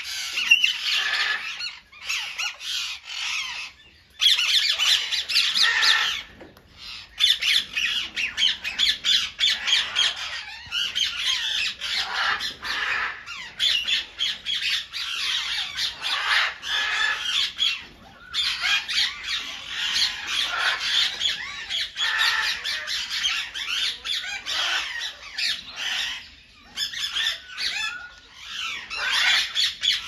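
Psittacula parakeets (ringneck, moustached, Alexandrine and Derbyan) squawking: harsh, shrill calls in rapid, overlapping runs, broken by a few short pauses.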